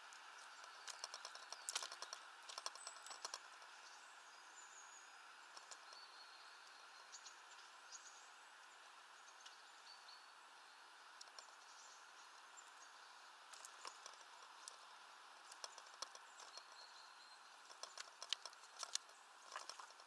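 Quiet outdoor ambience: a steady faint hiss with scattered small clicks and taps in short clusters, and a few brief, high, faint chirps from distant small birds.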